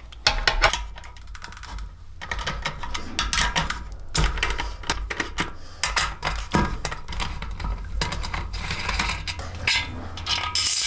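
8mm socket on a T-bar being worked on the bolts under a motorcycle rear fender: irregular metal clicks and clinks of the tool and the loosening bolts.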